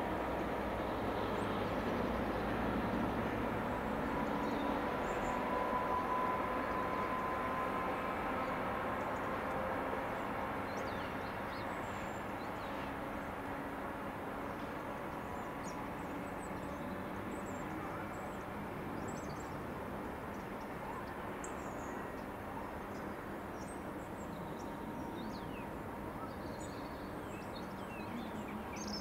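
Class 66 diesel locomotives running as a light-engine pair, their EMD two-stroke V12 engines giving a steady rumble that fades as they move away. Birds chirp lightly in the second half.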